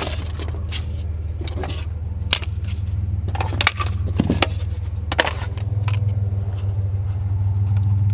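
Truck engine idling steadily, with a handful of sharp clanks and rattles from scrap metal junk being handled. The engine hum grows a little louder about halfway through.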